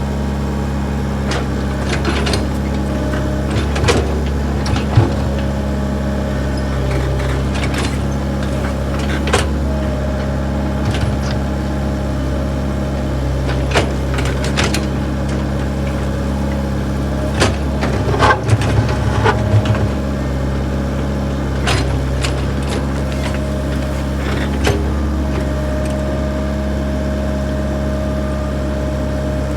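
Backhoe's diesel engine running steadily, with scattered knocks and clanks, a short cluster of them about two-thirds of the way through.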